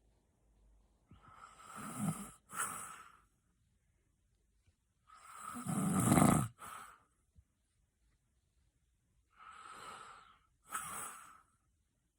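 A person snoring loudly: three breaths about four seconds apart, each a rough snore followed by a shorter, softer puff of breath, the middle one the loudest.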